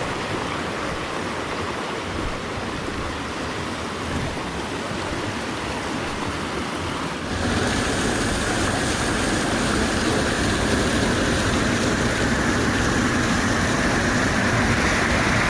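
Fast mountain stream running high over rocks, a steady rushing of water. About seven seconds in it cuts abruptly to louder rushing water.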